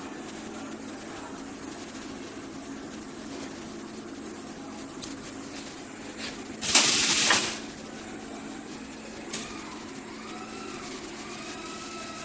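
High-frequency PVC welding machine at work over a steady background hum. There is a short click about five seconds in, then a loud hiss lasting under a second, then another click about two seconds later.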